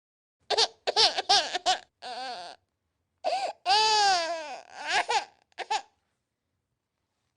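Infant crying in a string of short wailing cries with a pause in the middle, the longest and loudest a drawn-out wail that falls in pitch, then quiet.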